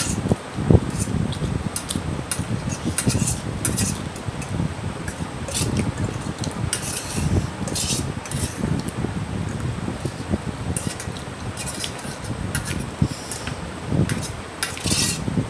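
Metal fork clinking and scraping irregularly against a steel plate while noodles are picked up and eaten, with close-up chewing.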